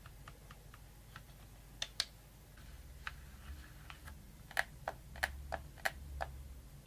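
About a dozen light, irregular clicks and taps, the sharpest ones bunched between about four and a half and six seconds in.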